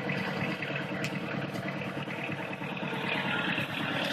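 Tractor engine running steadily with an even, fast pulsing.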